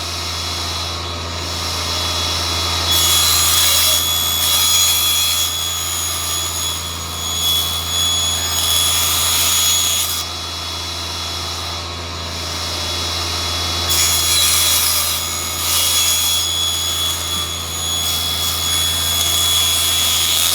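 Small table saw running with a steady motor hum while its blade cuts through a stacked pile of thin wooden strips. The cutting noise swells in two long stretches, the first starting about three seconds in and the second about two-thirds of the way through, with a few seconds of plain running between.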